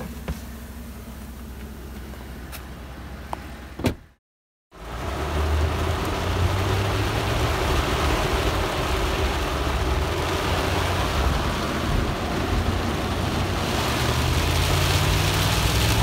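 Inside a truck cab driving through a heavy downpour: rain hitting the windshield and roof as a steady hiss over the road and engine rumble, starting abruptly about four seconds in. Before that there is a low hum with a few light clicks and a thump.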